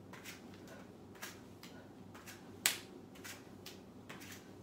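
Faint soft thuds and rustles from a barefoot person doing quick alternating high kicks on an exercise mat, about two or three a second, with one sharper one a little past the middle.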